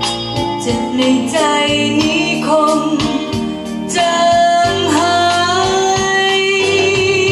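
A song playing from a vinyl LP on a Dual 701 turntable: a singing voice over instrumental backing, with one long note held for about three seconds from the middle on.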